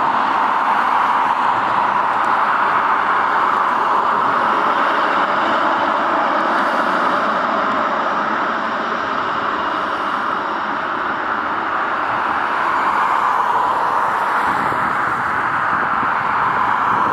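Emirates Boeing 777-300ER's GE90 turbofan engines running at low taxi thrust as the airliner rolls slowly past and turns away. The jet noise is a loud, steady rush that eases slightly about halfway and builds a little again toward the end.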